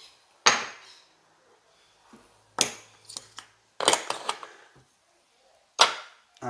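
Casino chips clacking as they are picked from a chip rack and set down on a felt craps layout to count out a payout. Sharp single clicks, about half a second in and again at two and a half seconds, a quick run of clacks around four seconds, and one more near the end.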